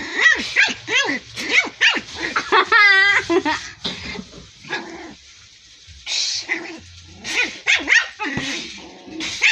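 Small white puppy barking and yipping in play: a quick string of short, high barks, one longer wavering call about three seconds in, a quieter lull, then more barks near the end.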